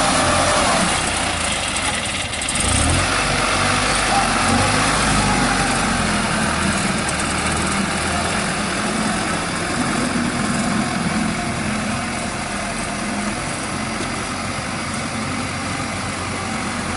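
Diesel engine of a farm machine running steadily, a continuous low engine drone.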